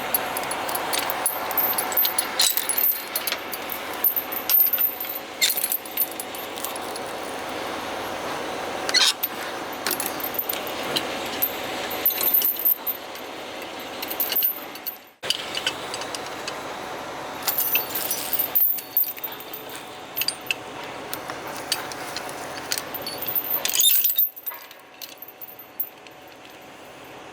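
Metal clinking and jangling, a string of sharp clicks and rattles that breaks off abruptly several times.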